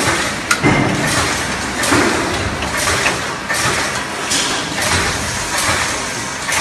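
Factory machinery running with a noisy swell roughly every second, with a sharp metallic click about half a second in and a few lighter knocks.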